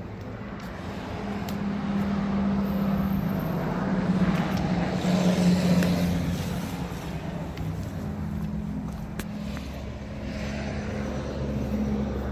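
Car engine running with a steady low drone and road noise, swelling for a few seconds in the middle, easing, then building again near the end.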